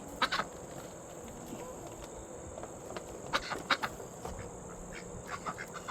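Backyard chickens clucking a few short times, in scattered groups.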